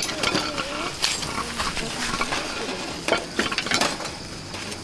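Clinks and knocks of a stainless steel camp rice pot and its wire bail handle as it is lifted and set down on a wooden block, the rice just cooked. The clicks come irregularly, the sharpest a little after three seconds in.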